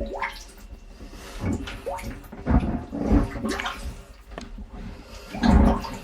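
Rubber boots wading through floodwater: water sloshing and splashing in irregular heavy surges, the loudest near the end.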